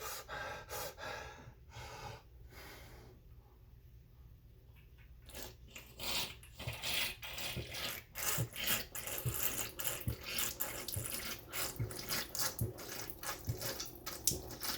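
A couple of breaths, then from about five seconds in a person slurping water through a paper towel stretched over a glass, a dense, irregular run of slurps that pull air in with the water.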